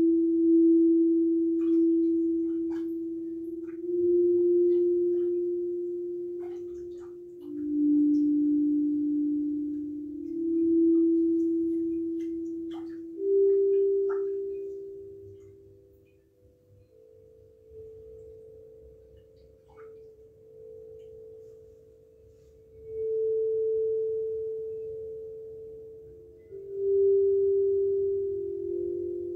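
Tall tuned metal resonator bars struck one at a time with a soft mallet, each ringing with a pure, sustained tone that slowly fades. About eight strikes on different pitches, a few seconds apart, softer in the middle of the stretch, with faint light clicks between them.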